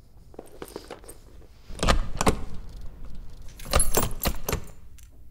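A bunch of keys jangling and clinking in three short bursts, the second and third louder.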